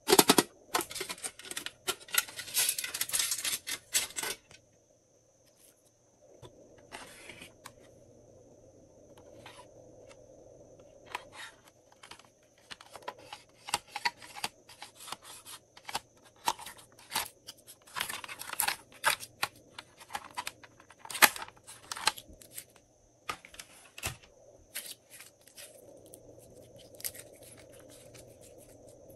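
Hands handling toy cases of tin and plastic. A dense run of scratchy rustling fills the first four seconds, then come scattered clicks, taps and short scrapes, with one sharp click about 21 seconds in.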